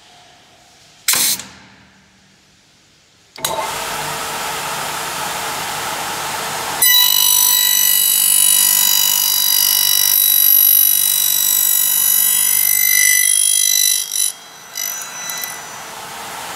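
1992 Pressta Eisele AKF 250 end milling machine working an aluminium profile: a sharp clack with a short hiss about a second in, then the spindle motor starts with a steady whirr. From about seven seconds in the cutter bites into the aluminium, adding a loud, high ringing whine of several tones, which stops suddenly about fourteen seconds in.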